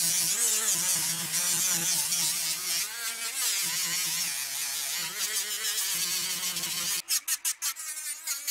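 Handheld rotary tool with a small sanding drum spinning at high speed against a wooden knife handle: a steady high whine whose pitch wavers as the drum bites into the wood. Near the end the steady sound breaks off into a quick run of short pulses.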